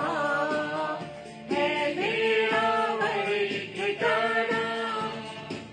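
A man and a woman singing a Hindi Christian hymn together in long held notes, with a short break about a second and a half in.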